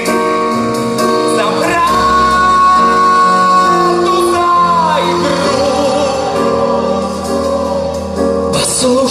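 Live band playing a slow song, with a male singer holding a long high note that slides down about five seconds in, then a wavering note.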